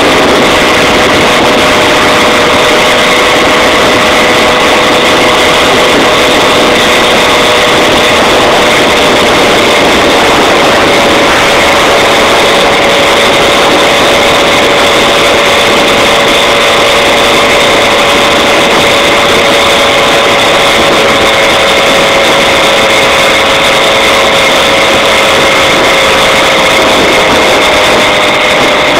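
A motorized bicycle's 70cc two-stroke Black Stallion kit engine running loud and steady under way at cruising speed. Its pitch dips slightly near the end.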